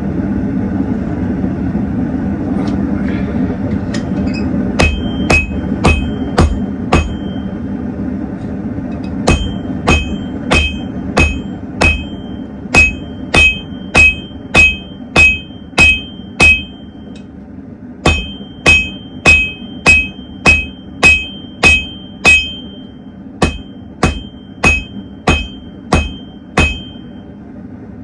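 Hand hammer striking hot steel on an anvil while forging a blade, in runs of blows about two a second with short pauses between runs; each blow leaves the anvil ringing. A steady low hum sounds under the first few seconds and fades out.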